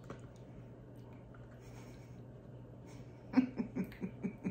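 Toddler making a quick run of short, silly vocal noises, starting about three seconds in, over a faint steady low hum.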